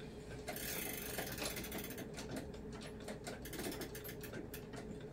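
Seth Thomas chain-driven grandfather clock being wound by hand: the chain is pulled down through its sprocket, and the click and ratchet clicks rapidly as the weight is drawn up.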